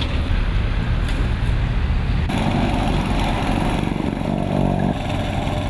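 A low engine hum, then, after an abrupt change about two seconds in, the small petrol engine of a vibratory plate compactor running steadily.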